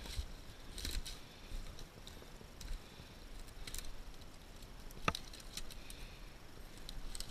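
Footsteps through dry branches and forest slash: scattered rustling and small twig cracks, with one sharp snap about five seconds in.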